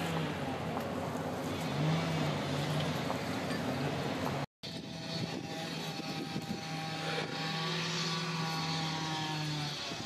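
An engine's steady low drone with several higher overtones. It wavers briefly in pitch about two seconds in and drops out for a split second near the middle.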